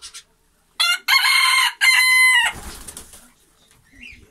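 A rooster crowing once, about a second in: a short opening note, then a long held note that lasts about a second and a half.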